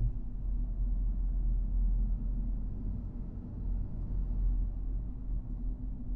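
Steady low rumble of a vehicle driving along a road, with road and wind noise.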